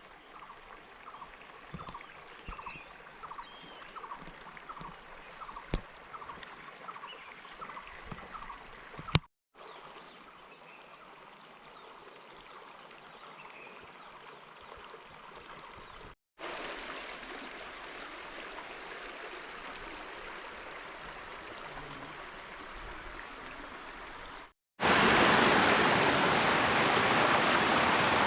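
Flowing water in several short clips cut together. First a gentle stream with a short chirp repeated over and over and a few clicks, then a quieter stretch, then louder rushing water, and near the end a much louder steady rush of water.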